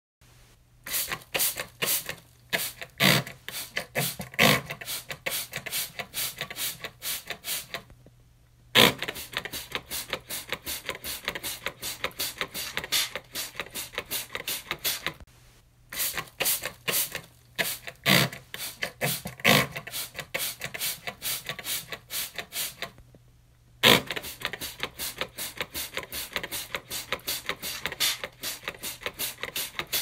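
Trigger spray bottle of cleaner pumped over and over, each squeeze a short hissing spray, several a second. It comes in runs of about seven seconds, each broken off by a brief pause.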